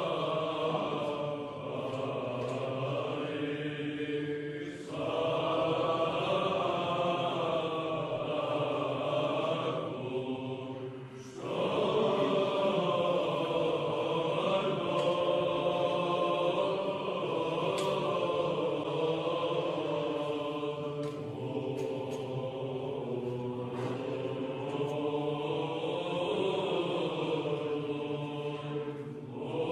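Byzantine chant: voices singing a slow melody over a steady held drone note, with short pauses about four and eleven seconds in.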